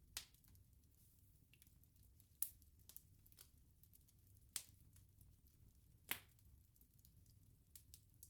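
Wood bonfire crackling: four sharp pops a second or two apart, with fainter ticks between them, over a faint low rumble.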